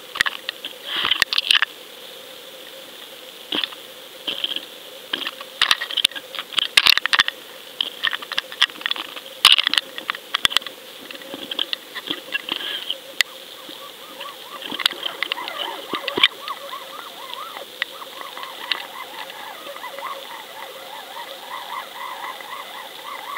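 Underwater noise heard through a waterproof camera housing on a fishing rig: irregular sharp clicks, knocks and crackles as the rig swings and bumps on its line. In the second half a wavering warble sets in beneath the clicks.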